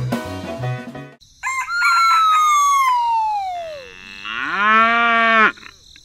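A rooster crows once, its long last note falling in pitch, followed by a cow mooing briefly with a rising, then level, call. Background music plays in the first second.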